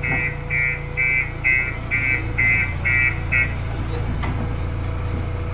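Diesel engine of a JCB backhoe loader running with a steady low rumble, while its reversing alarm beeps about twice a second and stops about three and a half seconds in.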